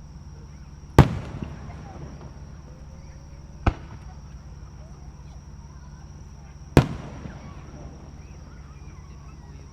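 Aerial firework shells bursting overhead: three sharp bangs, about a second in, a quieter one near four seconds, and a loud one near seven seconds. The two loud bangs each leave a short rumbling echo.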